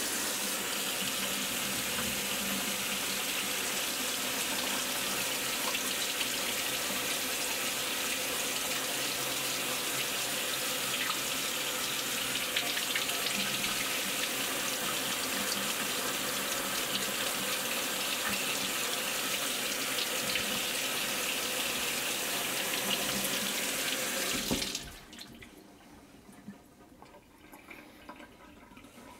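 Kitchen faucet running steadily, water splashing onto a glass disc held under it in a sink as laser-marking spray residue is rubbed and rinsed off. The water shuts off suddenly about 25 seconds in.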